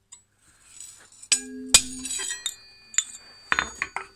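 Hammer blows on a newly forged centre punch, driving its point into a flat steel bar lying on the anvil to test it. There are a few sharp metallic strikes: two close together a little over a second in, the second the loudest and followed by a short ring, then another strike near the end.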